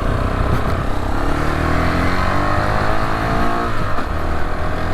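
Rieju Adventura 125's single-cylinder 125 cc engine pulling under acceleration, rising in pitch, then dropping sharply near the end as the rider changes gear.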